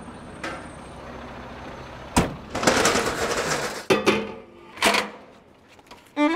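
Steel beer kegs clanking and scraping as they are handled and stacked onto a hand truck. There is a sharp metallic clank about two seconds in, then a stretch of scraping, then a couple more clanks a second or two later.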